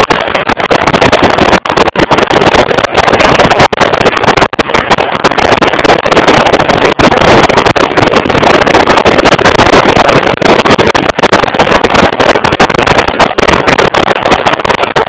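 Riding noise from a moving motorcycle: loud, distorted wind rush over the bike-mounted camera's microphone mixed with the engine, cutting out for instants again and again.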